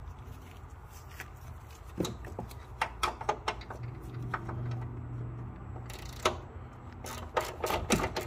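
Scattered metallic clicks and clinks of a 16 mm wrench being worked on a suspension nut, coming closer together near the end, over a steady low hum.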